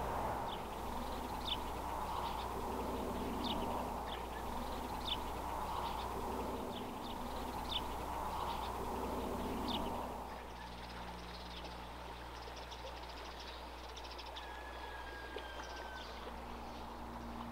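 Faint outdoor ambience: short, scattered bird chirps over a steady low background hum. The hum drops a little about ten seconds in.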